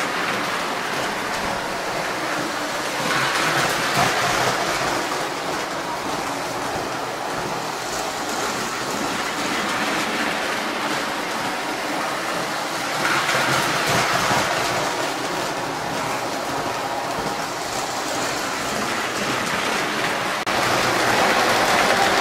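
Postwar Lionel O-gauge electric train running steadily on three-rail tubular steel track, its motor and wheels making an even rushing noise that swells louder twice and again near the end.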